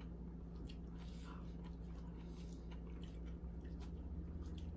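A person chewing a mouthful of soft baked spaghetti squash, with faint mouth clicks and smacks, over a steady low hum.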